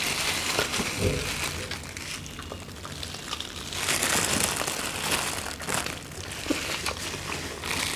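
Disposable plastic gloves crinkling as seafood boil is handled and bitten into, with chewing and small clicks from the food.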